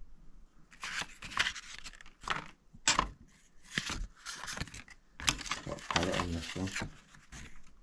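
Irregular bursts of rustling, scraping and crinkling, starting about a second in and stopping shortly before the end.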